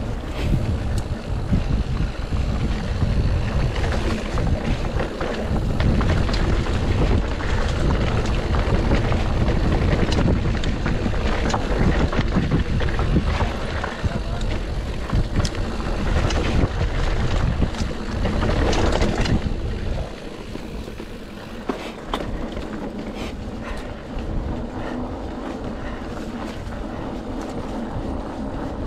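Mountain bike (a GT Sanction enduro bike) descending a rough trail, heard from a chest-mounted GoPro: heavy wind rumble on the microphone with rattles and knocks from the tyres and bike over rough ground. About twenty seconds in the wind rumble drops away and only quieter rolling noise and scattered rattles remain.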